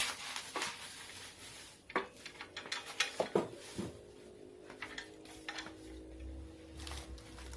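Scattered light clinks and knocks of exercise-machine parts being handled during assembly, with a faint steady hum in the second half.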